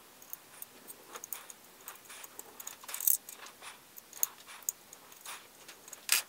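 Faint, irregular small clicks and ticks of a hand tool turning out the screws that hold a cooling fan in a diode laser module, with a louder click about three seconds in and another near the end.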